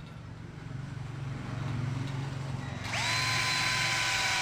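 Ken 12V cordless drill driver's motor spinning up about three seconds in and running steadily with a high whine, as it drives a self-tapping screw. A low hum comes before it.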